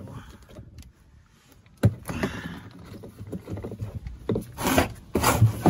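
Black plastic oil drain container being handled: a sharp knock about two seconds in, then plastic rubbing and scraping as its screw cap is twisted.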